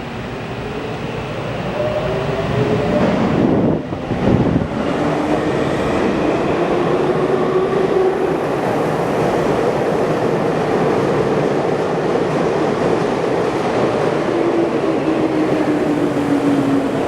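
Tokyu electric train running at the platform: wheel and running noise throughout, with the motors' whine gliding up in pitch over the first few seconds and gliding down near the end.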